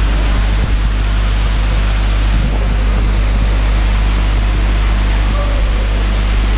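Steady, loud hum with a hiss over it, a low mains-like drone with several overtones underneath: floor-standing air conditioners running.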